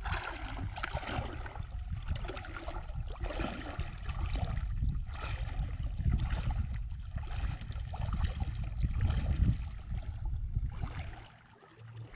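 Feet wading through shallow water, making irregular sloshing splashes, with wind rumbling on the microphone. The sloshing eases off near the end.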